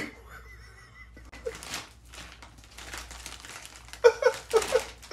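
Plastic bag crinkling and rustling as a cat with its head inside it squirms along the floor. A person laughs in short bursts near the end.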